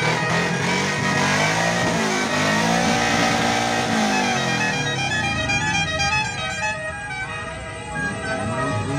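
Several multi-tone 'telolet' car horns sounding at once, playing stepped, tune-like notes, with rising-and-falling pitch sweeps through the middle.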